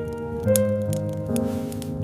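Instrumental background music with held notes that change every half second or so, and a few light clicks over it.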